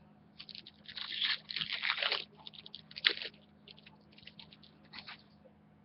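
Crinkly packaging handled during a trading-card box break, rustling and crackling in irregular bursts. It is densest between about one and two seconds in, with a sharp crackle about three seconds in.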